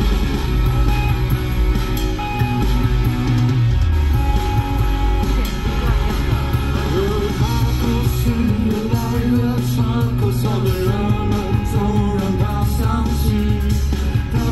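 Karaoke singing into a handheld microphone over a rock backing track with a strong bass line; the sung vocal becomes prominent about halfway through.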